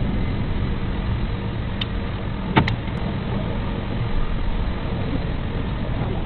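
A steady low hum of workshop background runs throughout. A sharp metallic clink comes about two and a half seconds in, with a few lighter ticks around it, as hand tools knock against the engine while its drive belt is fitted.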